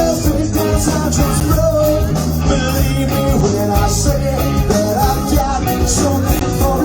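Live rock band playing loudly and steadily, with electric guitars and bass over drums.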